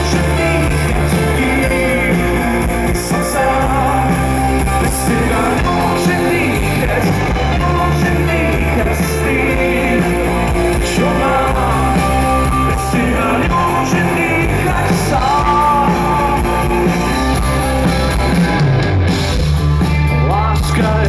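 Rock band playing live through a PA, heard from the crowd: an instrumental passage of electric guitars over bass and drums, with no lead vocal.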